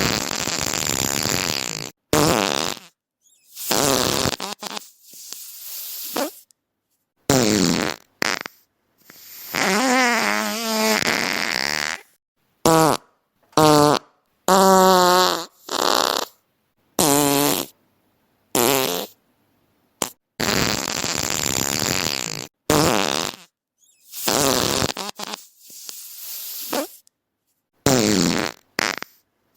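A rapid string of about twenty separate fart sounds, each cut off abruptly into silence before the next. Some are breathy and hissing, while others, mostly in the middle, are buzzing, pitched and wavering.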